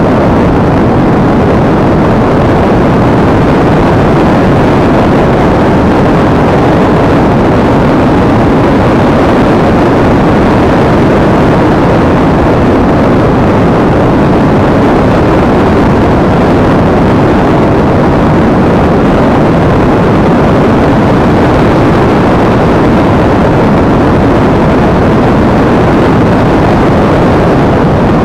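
Loud, steady rushing of the airstream past an onboard action camera on a Multiplex EasyStar RC model plane in flight, with no clear motor tone.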